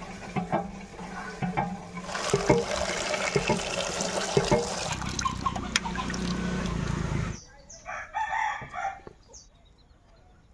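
Hand pump being worked, its handle knocking, then water gushing and splashing into a metal bucket; the water sound cuts off suddenly about seven seconds in. A rooster then crows once.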